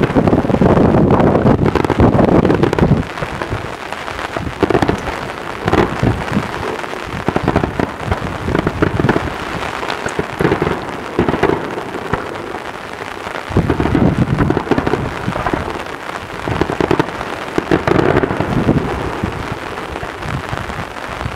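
Daytime fireworks display: shells bursting in a rapid, continuous string of bangs that run together into a rolling, thunder-like crackle, heaviest in the first few seconds and swelling again around the middle and near the end.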